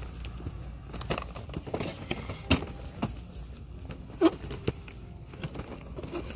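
Boxed action figures being handled on metal peg hooks: a few sharp clicks and knocks with light plastic rustling, over a steady low hum.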